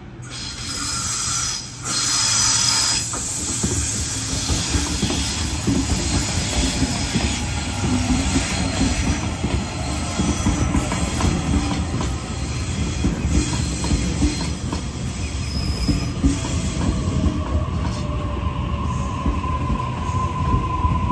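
Sydney Trains Waratah double-deck electric train running past close by into the platform: wheel and rail noise with high squeals, and a whine that climbs in pitch over the last several seconds.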